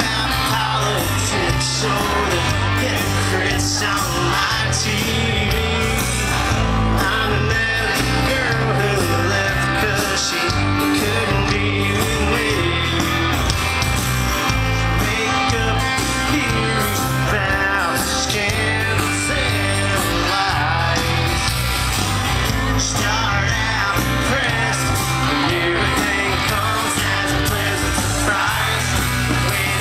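Live country rock band playing a song: lead vocals over acoustic and electric guitars, bass and drums, loud and steady, recorded from the crowd.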